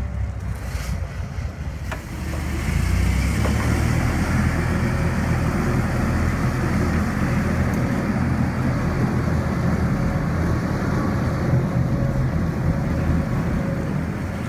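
Twin diesel engines of a Severn-class lifeboat running, a steady low rumble that grows louder about two seconds in.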